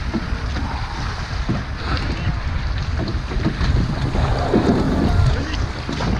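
Strong gusty wind buffeting the microphone, with choppy water splashing and slapping against a small wooden sailing skiff's hull.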